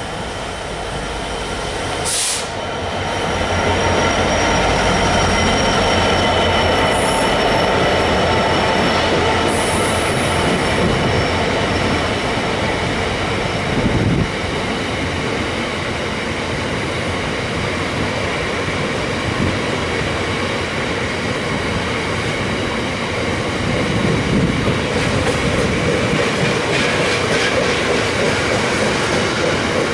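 Class 66 diesel locomotive passing with a train of Drax biomass hopper wagons: the engine runs, then the wagons roll by with squealing wheels and clattering over the rail joints. There is a sharp bang about two seconds in and another about fourteen seconds in.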